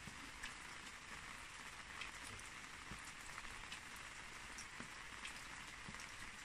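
Faint, steady patter of light rain, with scattered single drop ticks.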